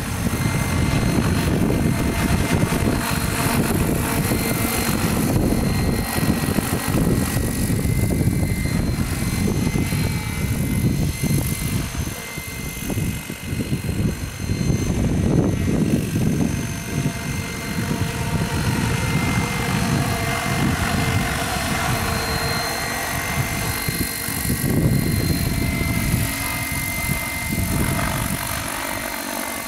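Radio-controlled scale helicopter on Hirobo Sceadu mechanics flying at high rotor speed: a steady high whine over the rotor's chopping rumble, dipping briefly as it flies farther off around the middle. Gusty wind rumbles on the microphone.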